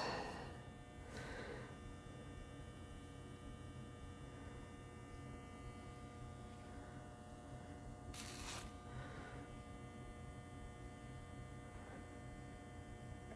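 Quiet steady electrical hum made of several faint steady tones, with a brief soft hiss about a second in and a louder one about eight seconds in.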